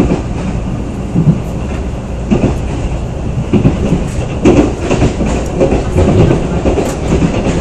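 Passenger train running along the line, heard from inside the carriage: a steady low rumble with irregular clacks of the wheels on the track.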